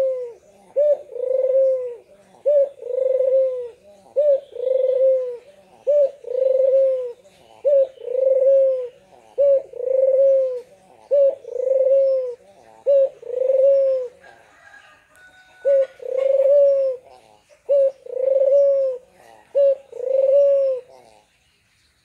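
White ringed turtle dove (puter) cooing over and over in its two-part call: a short clipped note, then a longer rolling coo, about every two seconds. The calls break off briefly past the middle, then stop about a second before the end.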